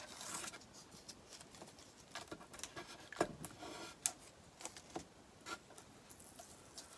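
Blue painter's tape and a plastic stencil being peeled up off a wooden board: faint rustling and crackling, with scattered small clicks at irregular times.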